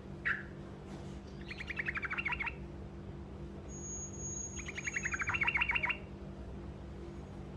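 Truco bird singing its short rolling song: a single chirp, then two trills of rapid repeated notes about a second each, the second starting about three seconds after the first. A steady low hum sits underneath.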